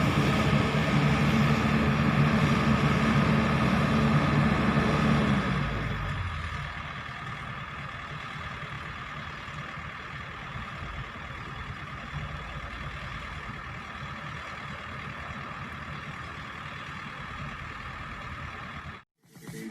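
Kobelco SK200 excavator's diesel engine running. It carries a strong steady hum for about the first five seconds, then drops to a quieter steady run.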